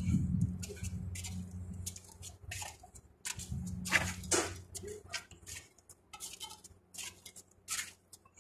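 Footsteps on concrete rooftop paving slabs: irregular scuffing clicks, a few a second, over a low steady hum that stops about two-thirds of the way through.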